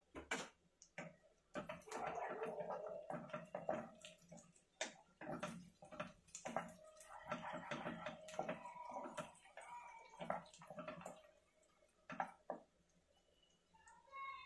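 Chopped green chillies and onions frying in oil in a nonstick kadai, with many short pops and crackles of spattering oil and a wooden spatula scraping and tapping against the pan.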